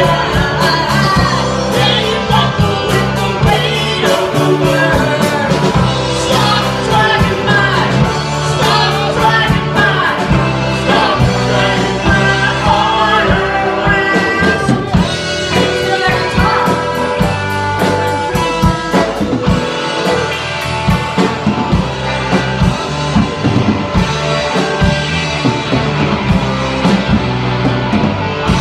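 Live rock band playing: a woman sings lead over two electric guitars, bass guitar, drum kit and keyboard, with a steady drum beat throughout.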